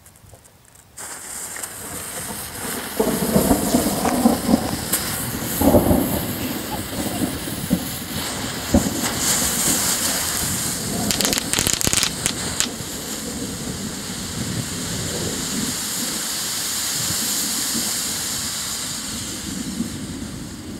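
A case packed with smoke balls lights about a second in and hisses loudly and steadily, with crackling and several sharp snaps and pops mixed in, one of them a cracker ball.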